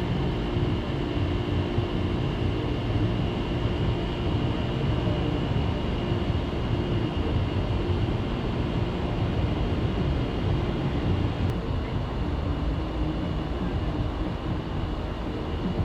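Outdoor air-conditioning and refrigeration condensing units running: a steady low rumbling drone of fans and compressors with a constant hum of several tones over it.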